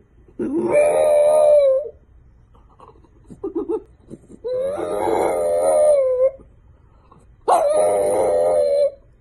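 French bulldog howling: three long howls, each held at a steady pitch, with a few short yelps between the first and second.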